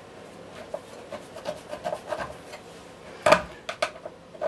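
Hand screwdriver tightening a screw into the top cover of a vacuum cleaner motor: a run of short scraping clicks as the screw is turned, a sharp knock a little past three seconds in, then a few more clicks.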